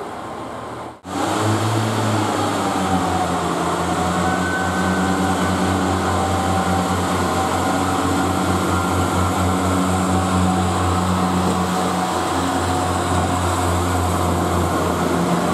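British Rail Class 142 Pacer diesel multiple unit's underfloor diesel engines running under power with a steady, pulsing drone as the two-car unit pulls along the platform and passes close by. The sound drops out briefly about a second in, then runs on loudly.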